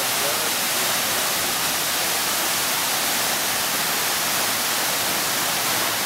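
Water pouring over the tiers of a large terraced cascade fountain and splashing into the pool below: a steady, even splashing.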